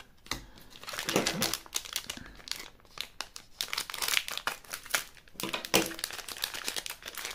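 Plastic wrappers of sealed gummy-candy trading-card packets crinkling as they are handled and picked up, a dense run of sharp crackles.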